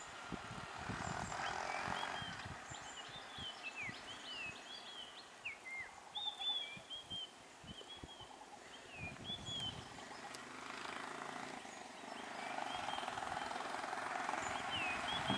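A tuk-tuk's small engine running as it edges slowly along the road, the hum swelling over the last few seconds, while birds chirp in short, quick calls throughout.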